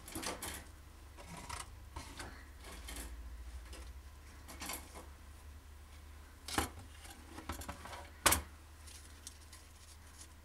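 Scattered light clicks and knocks of hard plastic and wooden feeding tongs being handled, with a plastic enclosure set down. The sharpest click comes a little after eight seconds in.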